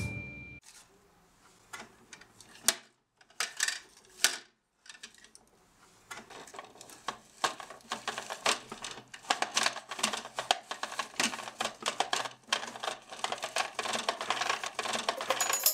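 Plastic parts of a Bruder MAN toy garbage truck clicking and rattling as they are worked by hand. A few separate clicks come first, then a rapid, continuous run of clicks from about halfway in.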